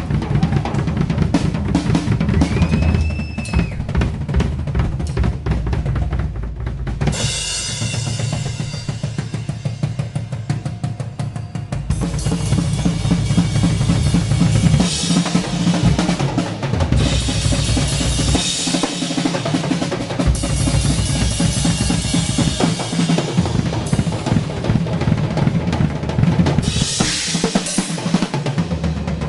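Live rock drum solo on a full drum kit: rapid bass drum, snare and tom hits, loud. Cymbals crash and ride over the drumming from about seven seconds in.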